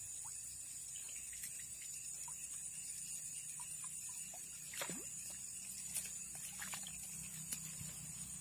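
Steady high-pitched insect drone over the ditch, with a few faint ticks and small water sounds as a soft frog lure is cast and worked across the surface.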